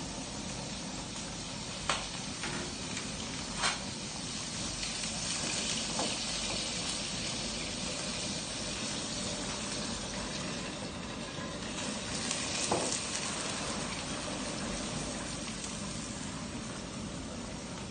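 Steady hiss and sizzle of a gas burner and food cooking in a wok, with a few sharp clinks scattered through.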